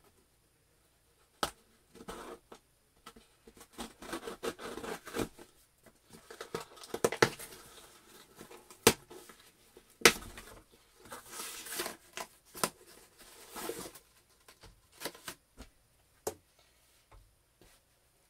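A mail package being opened by hand: its packaging torn and crinkled in irregular rustling stretches, with a few sharp snaps along the way.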